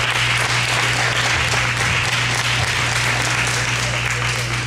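Audience applauding, dying away near the end, over a steady low hum.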